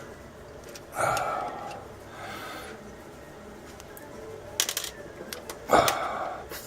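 Handling noise of a screwdriver driving the mounting screws into an electrical box: a soft scrape about a second in, a few sharp clicks around the middle, and a louder scuff near the end.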